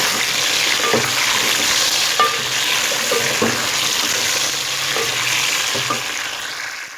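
Chicken pieces and fried onions sizzling in hot oil while being stirred with a spoon that knocks and scrapes against the pan now and then; this is the bhuna stage of sautéing the chicken. The sizzle eases off near the end.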